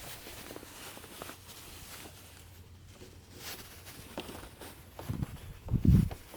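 Hand-working noise of pushing a rubber hose onto a catch can fitting: faint scattered clicks and rustling, then two dull thumps near the end, the second the loudest.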